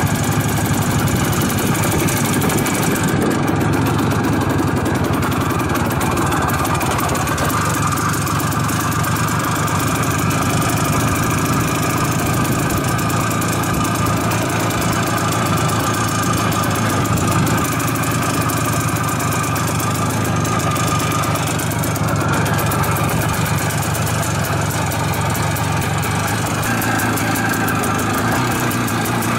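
Vehicle engine running steadily throughout, heard from on board the vehicle.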